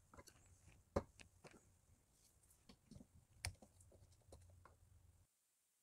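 Quiet clicks and light knocks of a steel connecting rod and bolt-and-bearing jig being handled and set down on a digital scale, with two sharper knocks, one about a second in and one about three and a half seconds in. The sound cuts off abruptly a little after five seconds in.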